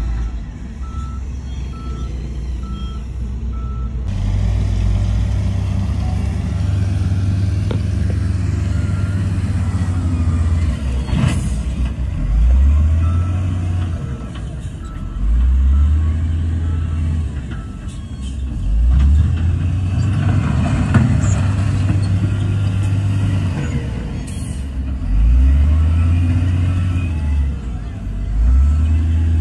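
Heavy diesel engines of a SHACMAN dump truck and a wheel loader running, revving up and settling back about five times. A reversing alarm beeps about twice a second for the first four seconds, and there is a single metallic clank about eleven seconds in.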